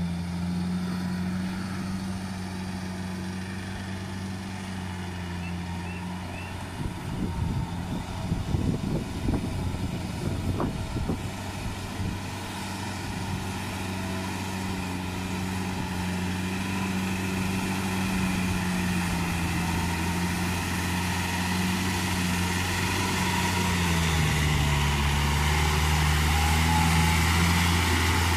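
Small diesel farm tractor running steadily while driving a rear rotary tiller through a flooded rice paddy, its engine note dipping in pitch under load for a moment near the end and growing louder as it approaches. A few seconds of rough, irregular rumbling noise break in partway through.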